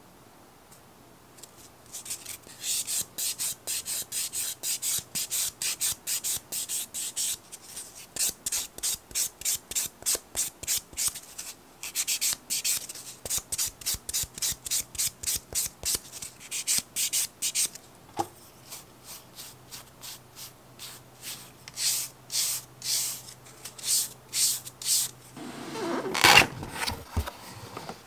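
Fingernails sanded with the 180-grit side of a 100/180 sponge nail file: quick back-and-forth rasping strokes, about three a second, with short pauses. Near the end comes a louder rustle of cardboard packaging being handled.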